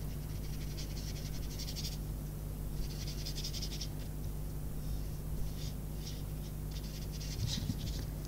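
Soft, scratchy swish of a wet watercolour paintbrush worked round in small circles on card, coming and going in short stretches over a faint steady low hum.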